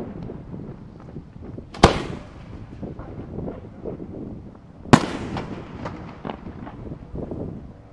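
Aerial fireworks shells bursting: two loud booms about three seconds apart, each trailing off in an echoing rumble, with smaller pops and crackles in between.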